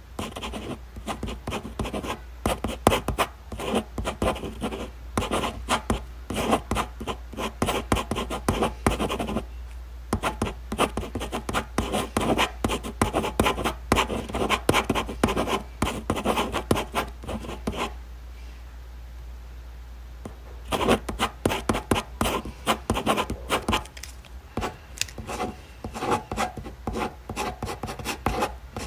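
Ballpoint pen writing on exam paper: quick, irregular scratching strokes in runs, stopping for about three seconds a little past the middle, over a steady low hum.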